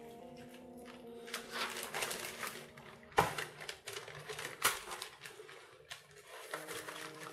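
Hands working a sour-cream coating over a whole bream on a parchment-lined baking tray: wet smearing and rustling of the baking paper, with two sharp clicks about three and four and a half seconds in. Soft background music at the start and near the end.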